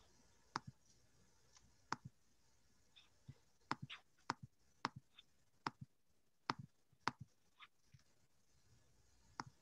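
Faint, irregular clicking at a computer: about a dozen short, sharp clicks spread through, some in quick pairs, over quiet room tone.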